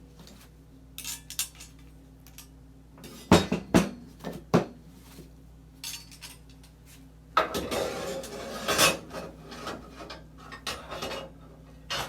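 Hard parts of a Taylor 342D frozen drink machine clinking and knocking against each other as they are handled and fitted, with a few sharp knocks about three to four and a half seconds in and a stretch of scraping and rattling around eight seconds in.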